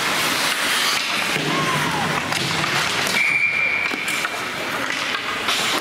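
Crowd and game noise at a youth sports game: a steady wash of noise with a short falling squeak about one and a half seconds in, and a steady high tone about three seconds in that lasts about a second.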